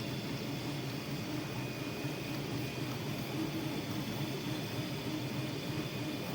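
Steady mechanical hum with fan-like hiss and a low drone, unchanging throughout.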